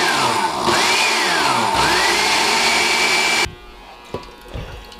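Countertop blender motor running hard on a jar of sausage, burrito and sardine chunks, its whine falling and rising as it churns, then cutting off suddenly about three and a half seconds in. A few faint knocks follow.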